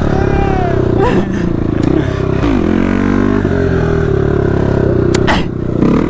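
KTM motard engine revving high through a wheelie. Its pitch dips sharply about a second in, again around two and a half seconds, and near the end, each time climbing back as the throttle is rolled off and opened again.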